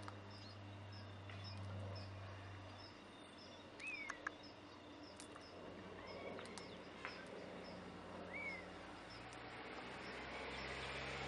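Faint birdsong: a small bird chirping high and quickly over and over, with three short whistled calls that rise and fall partway through. A few sharp clicks come in among the whistles.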